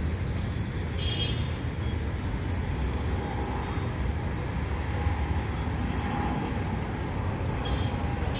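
Steady low rumble of aircraft engines, with a few faint, brief high tones over it.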